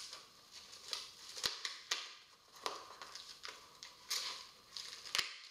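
A knife cutting through the plastic wrapping and tape of a shipping package: a series of short scratchy strokes with two sharp clicks.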